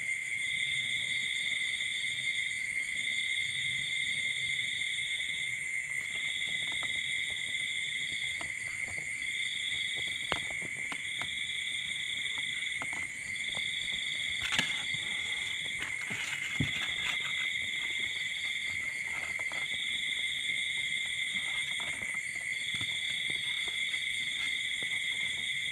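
Insects trilling: a steady high-pitched drone with a second, higher trill that comes in pulses of one to two seconds, and a few faint clicks.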